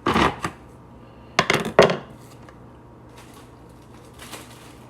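Kitchen utensils and dishes knocking together: a short clatter right at the start and another about a second and a half in, then only faint handling noise.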